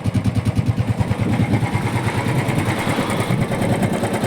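Royal Enfield motorcycle engine idling with an even, rapid beat of about ten pulses a second, running after a service with fresh oil and new filters.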